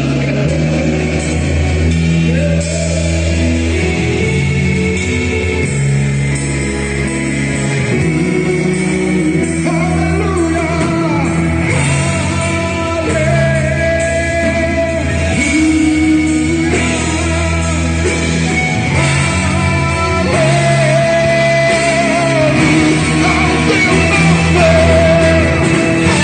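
Live worship music: a band playing a Portuguese gospel praise song, with a male lead vocal singing over it.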